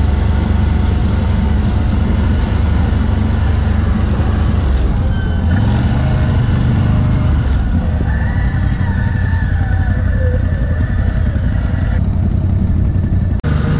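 ATV engine running under way, a loud, steady low drone. Its pitch steps up about five and a half seconds in as it revs up.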